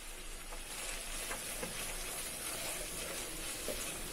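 Chopped onions and ground cashew-almond paste sizzling steadily in hot fat in a nonstick pot, stirred with a wooden spoon. A few soft knocks of the spoon come through now and then.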